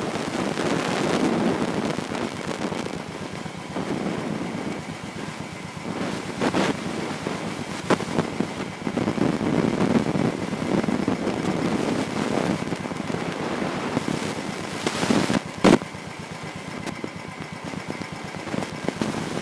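Royal Enfield Thunderbird 350 motorcycle running on the move, with wind buffeting the microphone. A few sharp knocks stand out, the loudest about fifteen seconds in.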